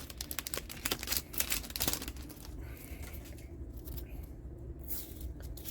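Stiff plastic trading cards clicking and snapping as they are pried apart, having stuck together: a quick run of sharp clicks in the first two seconds, then a few scattered ones.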